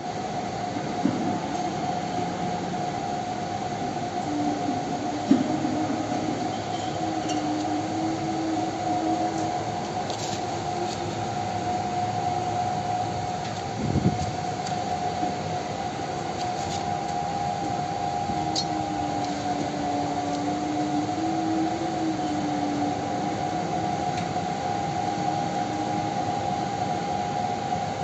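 Wood-pellet heater's electric fan running: a steady whirring hum with a constant whine and a lower tone that wavers in pitch. A few brief knocks, the loudest about five seconds in and another about halfway through.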